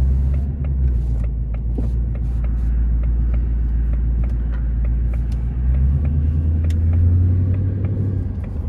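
2024 Ford Mustang GT's 5.0 V8 through a Borla S-Type cat-back exhaust, heard from inside the cabin with a window cracked. It drones steadily at low revs, then rises in pitch and loudness about six seconds in as the car accelerates.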